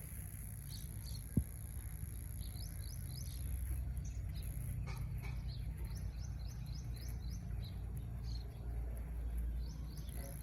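Small birds chirping outdoors in quick runs of short, rising notes, over a steady low rumble. A single sharp click comes about a second and a half in.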